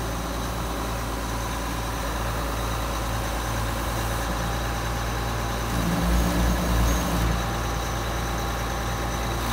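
John Deere 7720 combine's diesel engine running steadily, briefly louder and deeper for about a second around six seconds in.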